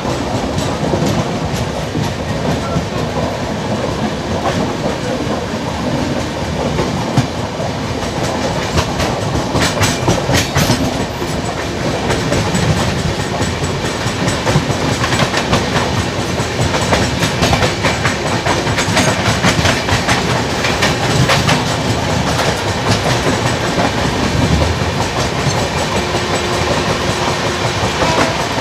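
Two Indian Railways express trains running at speed on adjacent tracks: a steady rushing rumble from the coaches, with wheels clattering over rail joints throughout.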